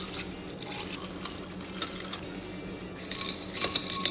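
Metal spoon stirring a drink in a glass, with a few faint taps and then, about three seconds in, a fast run of ringing clinks against the glass.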